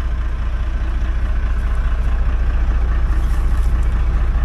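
Diesel engine of a Hino truck idling steadily, a low, even hum.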